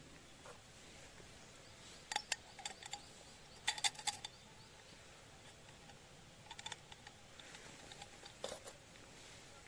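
Small wood fire in a BushBox LF stove crackling: sharp pops and clicks in a few short clusters, the loudest about four seconds in.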